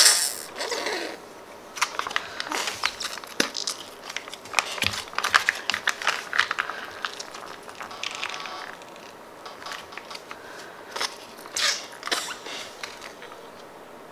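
Plastic squeeze pouch and head of a Slimy Bag Man slime toy being squeezed and handled: irregular crinkling and crackling, with a loud burst at the very start, a busy stretch through the first half, and a few more crackles near the end.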